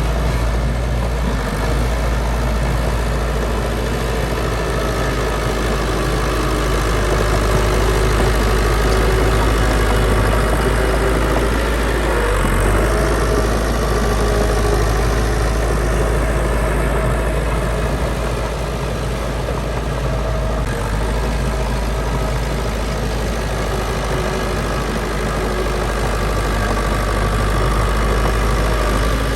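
Heavy construction machine's diesel engine running steadily at a constant level, a low rumble with a steady engine hum over it.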